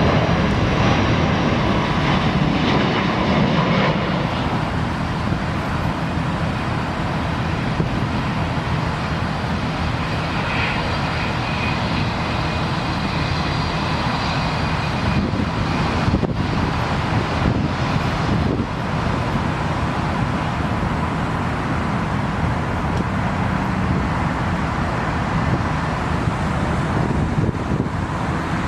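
Jet airliner engine noise, a steady rumble and rush, mixed with wind and rain on the microphone; it is a little louder in the first few seconds.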